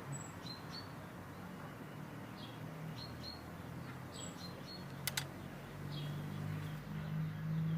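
Faint high bird chirps recurring every second or so over a low steady hum, with two quick clicks about five seconds in.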